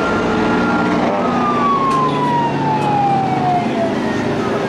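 A siren wailing: one tone held high, then sliding slowly down for about three seconds, and starting to rise again near the end. It sounds over the steady running of semi-truck racing tractors' engines.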